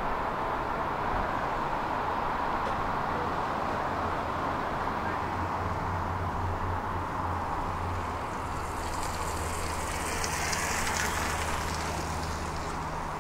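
Steady low hum of distant city traffic. About two-thirds of the way through, a high hiss swells up for a few seconds and fades.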